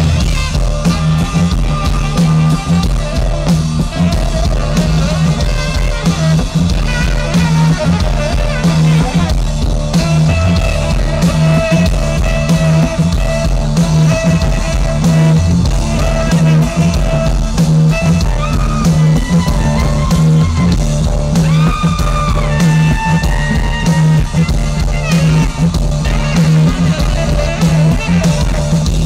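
Live band music, loud and continuous: a driving groove with a repeating bass line pulsing low under drums and guitar, heard from inside the crowd through a phone's microphone.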